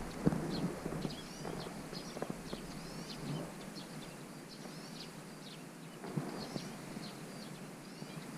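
Small birds chirping repeatedly in short high notes, with a few soft knocks of handling near the start and again about six seconds in.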